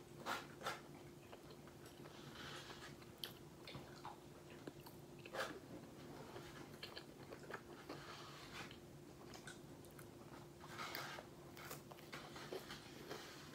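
Faint close-up chewing and biting of a fried chicken sandwich, with short mouth clicks scattered throughout and a few louder ones near the start and about five seconds in. A steady low hum runs underneath.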